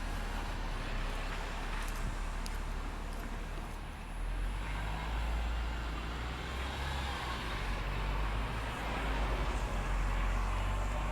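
Road traffic passing: a steady rush of tyres and engines with a low rumble, swelling about four seconds in and again near the end.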